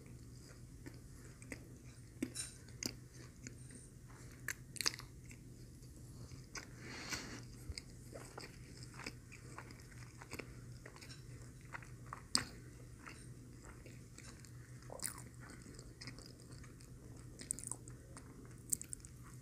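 Close-miked mouth sounds of a person chewing a McDonald's Filet-O-Fish sandwich: soft, wet chewing with scattered clicks and smacks, and another bite taken near the end.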